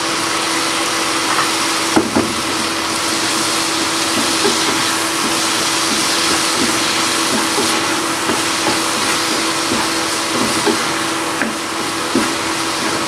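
Chopped tomato sizzling in hot oil with onions and spices in a pan, a steady frying hiss over a low hum, while a wooden spoon stirs it, knocking against the pan once sharply about two seconds in and lightly a few more times.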